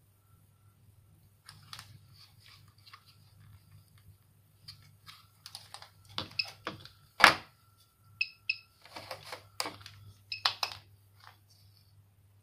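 Handling noise from a small plastic counter box, its plug-in terminal connectors and cables: scattered clicks and knocks, thickest in the second half, with one sharp knock loudest about seven seconds in. There are two brief high tones about eight seconds in, over a steady low hum.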